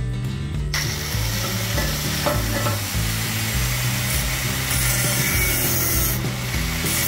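Angle grinder with a thin cut-off disc starting up about a second in and cutting into the steel shell of a motorcycle de-cat pipe: a steady hiss of the disc on metal.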